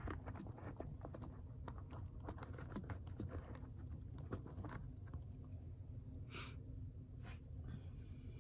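Faint, irregular small ticks and crackles of fingertips working moisturizer into skin close to the phone's microphone, over a low steady hum. A short soft hiss comes about six seconds in.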